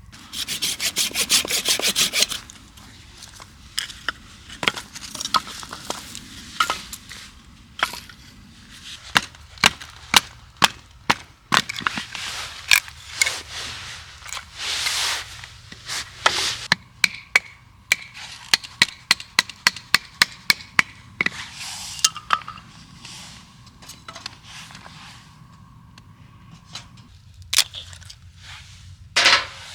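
Firewood being worked by hand: a quick run of rasping strokes, then a long series of sharp wooden cracks and knocks.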